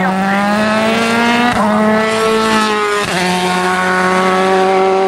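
Open-wheel single-seater race car's engine pulling hard uphill, its note rising and broken twice, briefly, at gear changes about a second and a half and three seconds in.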